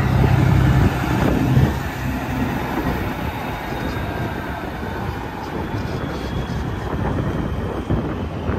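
Heavy truck passing on the interstate: a steady engine drone for the first couple of seconds, then the rush of tyre and road noise.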